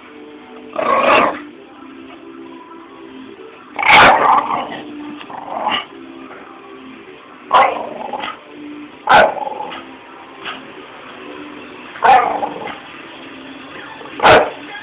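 A bulldog barking in playful short bursts, about seven times, over background music.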